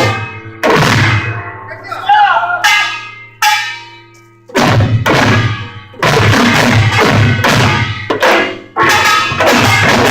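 A pungmul percussion ensemble of Korean drums and gongs. The driving rhythm breaks off into a few separate strikes that ring out and fade. The full ensemble comes back in about four and a half seconds in and plays on, with a short break near the end.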